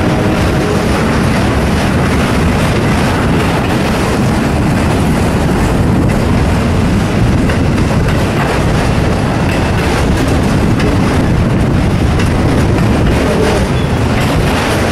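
Freight train cars rolling steadily past, their wheels clacking over the rail joints.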